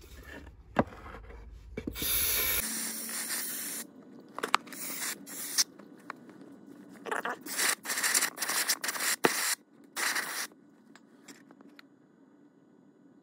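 An aerosol freeze spray can hissing onto the airbox's cold-start flap and its thermostat, chilling it. There is one long spray about two seconds in, then a string of shorter bursts.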